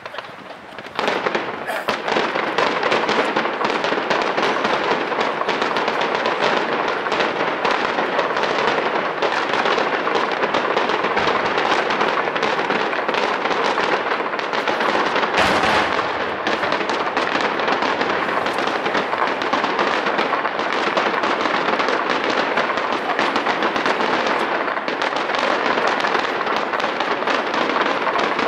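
Fireworks display: many fireworks going off together as a dense, continuous crackling and popping, starting about a second in, with a louder bang about halfway through.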